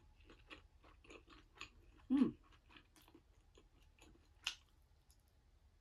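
Close-up chewing and mouth noises of someone eating curry rice with a plastic spoon: many small wet clicks and smacks. A short vocal hum about two seconds in, and a sharper click about four and a half seconds in.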